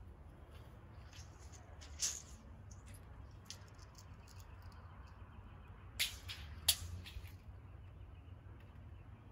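Tape measure being handled and reeled in: a sharp click about two seconds in, then two louder clicks just over half a second apart later on, over a low steady rumble.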